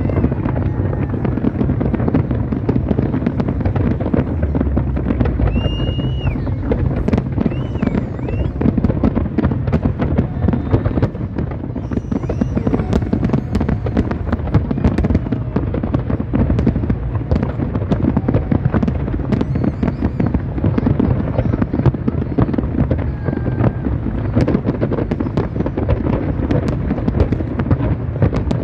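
Fireworks display at full barrage: a continuous, rapid stream of cracks and bangs from many shells bursting at once, with a few short whistles about six seconds in.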